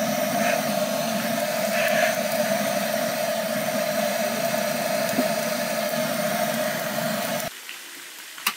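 Handheld butane torch on a gas canister burning with a steady hiss and hum, its flame played onto firewood to light a stainless wood stove. It shuts off suddenly about seven and a half seconds in, followed by a single sharp click near the end.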